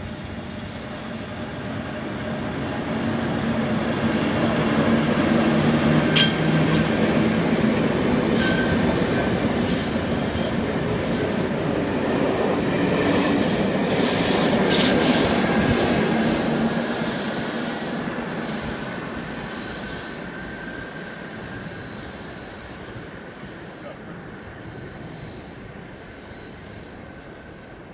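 A Network Rail test train with GBRf Class 73 locomotives at each end passes by. It swells to its loudest over the first several seconds and then fades, with sharp clicks from the wheels over the rail and a high, steady wheel squeal that carries on as it draws away.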